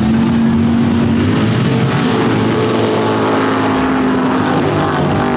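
Off-road race buggy's engine running hard at high revs as it races through dirt and a muddy water pit. The pitch steps up a little about a second in and eases near the end.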